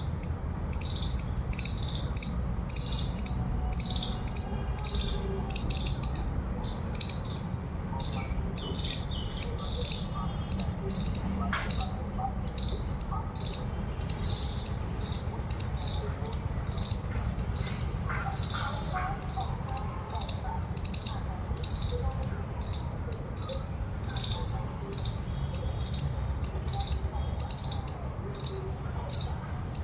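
Outdoor insect chorus: a steady high shrill drone with chirps pulsing about twice a second, joined by a few short bird chirps about ten, fourteen and nineteen seconds in. A steady low rumble runs underneath.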